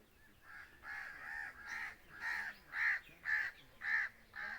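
A crow cawing repeatedly, a quick run of short harsh caws about two a second, loudest in the second half.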